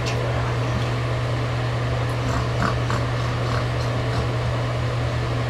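Four-week-old French Bulldog puppy giving a few short, high squeaks about halfway through, over a steady low hum.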